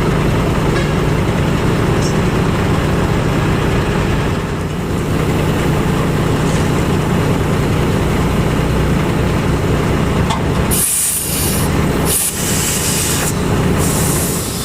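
Heavy diesel truck engine running steadily. A little under eleven seconds in come three short, loud bursts of air hissing, like air brakes or compressed air being let out.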